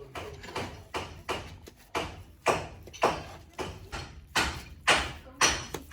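Repeated sharp knocks, about two a second, each with a short ringing tail, getting louder toward the end.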